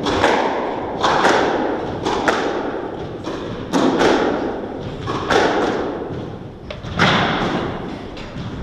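Squash ball being struck by racket and hitting the court walls, in a series of sharp hits about once a second, each ringing on in the hall.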